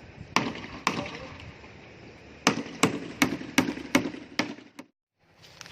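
A hammer driving nails into wooden formwork boards: two blows, then a quicker run of about six blows at roughly three a second.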